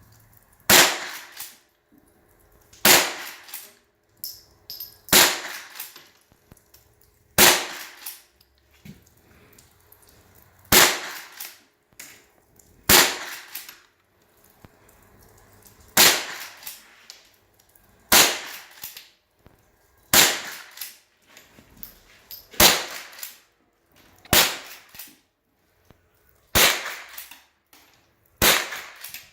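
A Henry .22 rimfire rifle fired about thirteen times at an even pace, roughly one shot every two seconds, each sharp crack followed by a short echo and smaller clicks.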